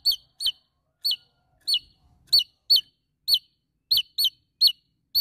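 Javan tesia calling: a rapid, uneven string of short, sharp notes, each dropping quickly in pitch, about two a second.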